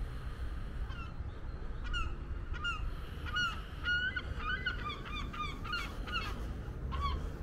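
Birds calling: a string of short, hooked call notes, coming close together in the middle, over a steady low rumble.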